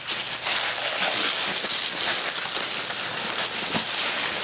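Tissue paper rustling and crinkling as several hands dig through it, a steady crinkle with scattered small crackles.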